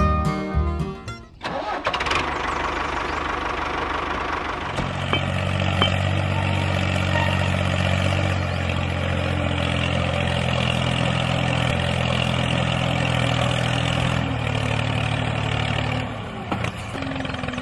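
A small tractor engine starting and then running steadily with a low hum; its pitch changes about sixteen seconds in.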